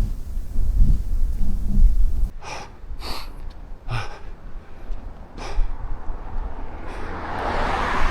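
Wind buffeting the microphone with a low rumble, then four short, sharp breaths of a hiker breathing hard on a high-altitude climb. Near the end a rising hiss of a vehicle approaching builds up.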